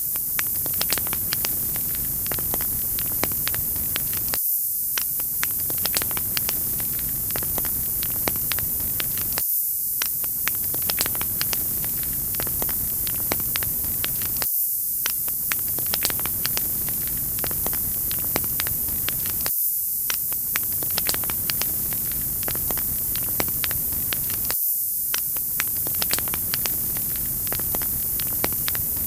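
Wood fire crackling in a fireplace: many small sharp pops over a steady hiss. The pattern repeats about every five seconds, as a loop does.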